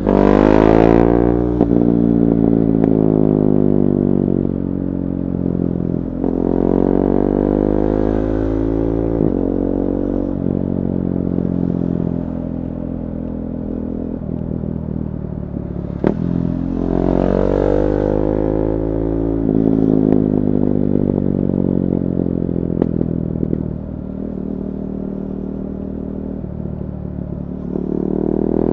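KTM 390 Duke's single-cylinder engine through a decatted Akrapovic slip-on exhaust, revving up sharply and winding back down about four times, with steadier running in between.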